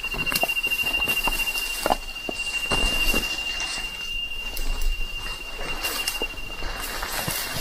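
Footsteps on a mountain trail with scattered crunches and snaps, over a steady high-pitched tone that holds one pitch throughout.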